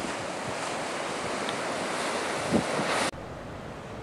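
Wind buffeting the camera microphone over sea surf washing against the rocks, with one strong gust thump a little past halfway. About three seconds in the sound cuts abruptly to a quieter, duller wash of sea and wind.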